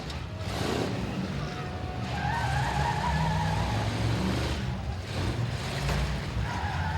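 Engines of several big domestic demolition-derby cars running and revving together, with a few wavering higher tones riding over the steady low rumble.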